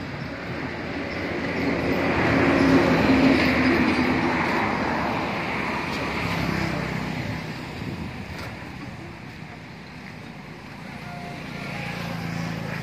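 A motor vehicle passing by: engine and road noise swell to a peak a few seconds in and fade away, and another begins to approach near the end.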